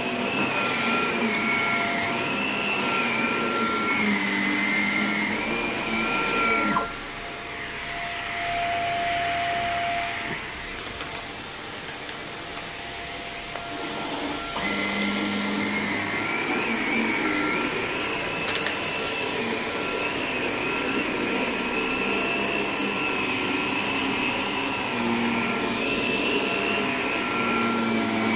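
Bagless vacuum cleaner running over a shaggy rug and carpet, its motor whine wavering up and down as it is pushed back and forth. About seven seconds in, the whine drops away and the sound stays quieter until about halfway, then the full whine returns.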